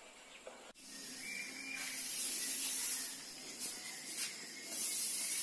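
Bundle of dried mustard stalks swished and scraped across a concrete floor, a series of dry rustling swishes, as the mustard seed is threshed out by hand. It starts about a second in.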